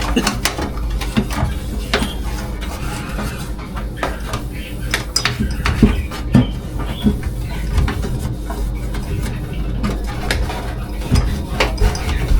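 Kitchen clatter: dishes and utensils clinking and knocking in scattered short strikes over a steady low hum.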